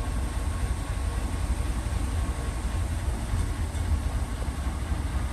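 Heavy diesel earthmoving machinery running with a steady low rumble.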